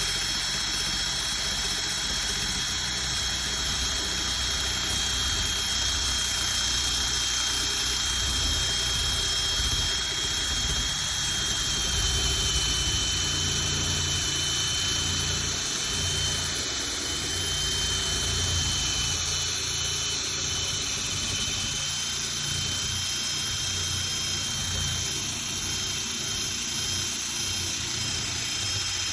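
Electric drill with a sanding attachment running steadily, sanding old paint off a metal vehicle hood. It gives a high, steady whine over a rough rumble, and the whine drops slightly in pitch about twelve seconds in.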